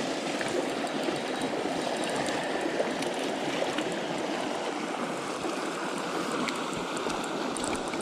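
Creek water flowing over rocks in a steady rushing babble.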